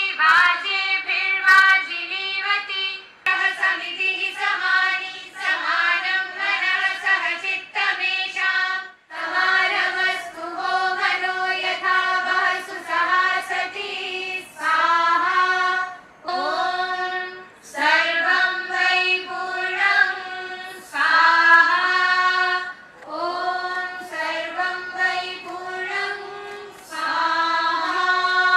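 A group of girls singing a chant together in unison, in short melodic phrases with brief breaks between them.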